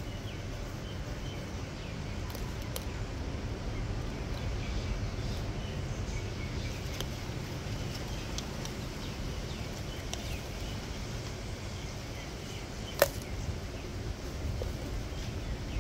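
Aldabra giant tortoise biting and chewing cucumber: scattered faint wet crunches over a steady low rumble, with one sharp click about thirteen seconds in.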